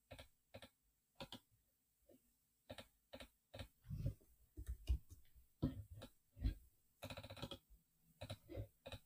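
Faint, irregular taps and clicks of a computer keyboard and mouse being used to edit and copy text.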